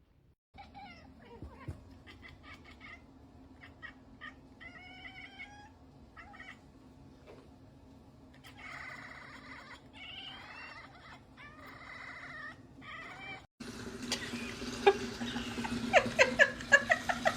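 Cat meowing in a series of short, wavering calls over a steady low hum. After an abrupt cut about three-quarters of the way through, the sound is louder, with sharp clicks among the calls.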